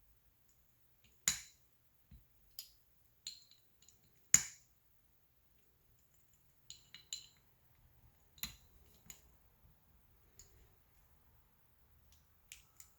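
Scattered small metal clicks and clinks of a hand tool and small metal parts on a Bosch warm-up regulator being tightened up, with two sharper clinks about a second in and about four seconds in.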